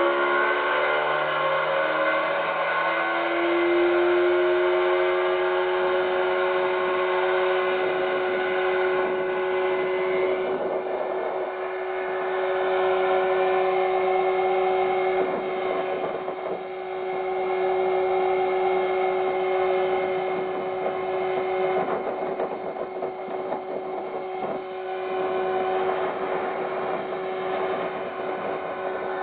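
Mariner outboard motor driving a speedboat: its pitch falls over the first few seconds as it throttles back, then it runs on at a steady pitch.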